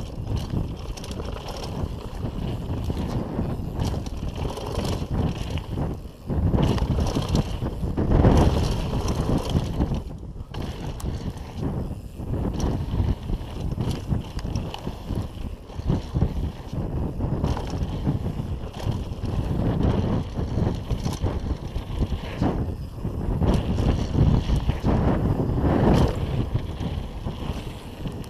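Wind rumbling on the microphone of an action camera worn by a rider descending a dirt downhill mountain-bike trail, mixed with the bike's tyre noise and rattle; the rumble surges and fades with speed and bumps.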